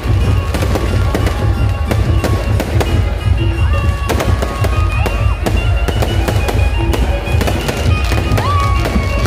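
Fireworks cracking and popping in quick succession over loud, bass-heavy music.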